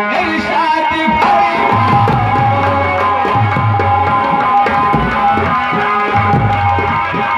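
Instrumental interlude from a nautanki accompaniment band: an electronic keyboard plays a held, sustained melody, and a hand-drum rhythm enters about two seconds in.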